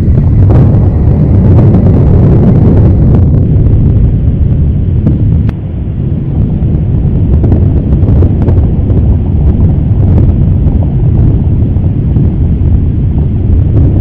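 Loud, steady low rumble, with a brief dip about five and a half seconds in.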